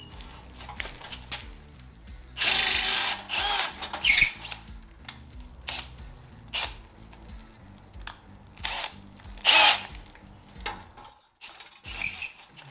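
Electric drill running in short bursts, boring through steel, over background music.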